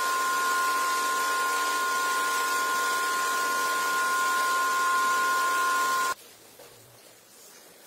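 Vacuum cleaner running steadily, a hiss with a high two-note whine, cutting off suddenly about six seconds in.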